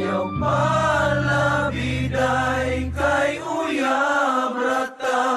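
Bisrock song: sung vocals over the band, with the low bass notes dropping out about two-thirds of the way through.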